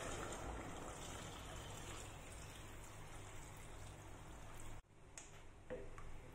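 Water poured from a plastic jug into a hot pot of sautéed pumpkin: a steady pouring and splashing hiss that stops abruptly about five seconds in. A few light knocks of a wooden spoon stirring in the pot follow.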